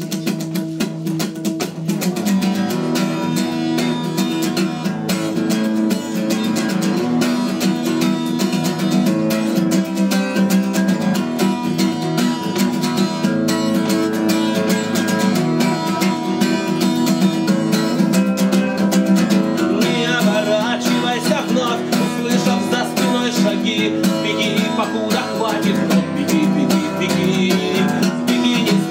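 Steel-string acoustic guitar strummed in steady chords, the introduction of a song. A singing voice joins over the guitar in the last third.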